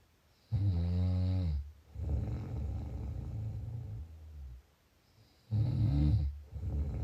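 Snoring: two loud snores about five seconds apart, each a pitched sound lasting about a second, followed by a longer, softer breath.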